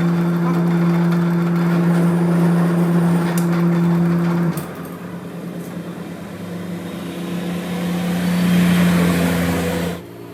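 Workshop machinery running: a steady motor hum that stops abruptly about four and a half seconds in, followed by a rising metal-working hiss that builds and then cuts off just before the end.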